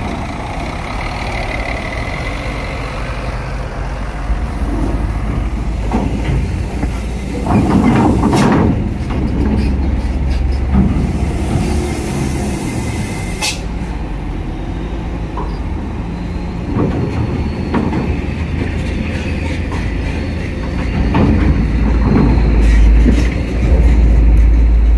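Diesel trucks and a bus rolling off a ferry ramp onto steel decking: a steady low engine rumble with knocks as wheels cross the ramp plates. An air-brake hiss starts about ten seconds in and cuts off suddenly a few seconds later. The engine rumble grows louder near the end.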